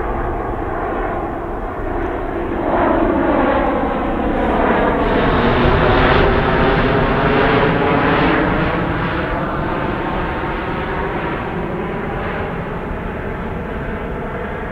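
Airbus A400M's four TP400-D6 turboprop engines and propellers droning as the transport aircraft flies low overhead on approach. The sound swells to its loudest about six seconds in as it passes over, and its pitch bends downward as it moves away.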